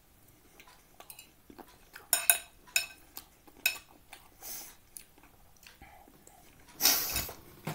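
Pizza being chewed with open-mouthed smacking and wet mouth clicks, a cluster of them from about two seconds in. Near the end comes a loud, short nasal sniff from a runny nose.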